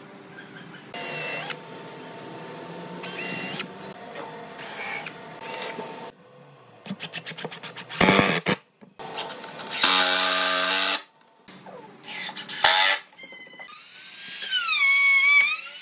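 Cordless drill driving screws down through a pine tabletop in several short runs, its motor whining with each run. Near the end an electric trim router starts, its pitch dipping and rising as it runs.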